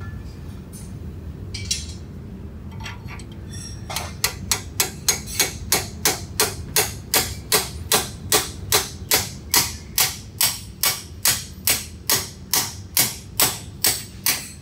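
Steady hammer blows on a bearing driver, driving a bearing's inner race down a mud-motor drive shaft clamped in a vise. The blows are sharp and evenly paced, about two to three a second, starting about four seconds in.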